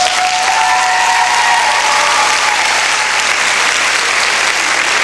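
Audience applauding, a dense steady clapping that sets in as the music stops, with a held high tone over it in the first two seconds.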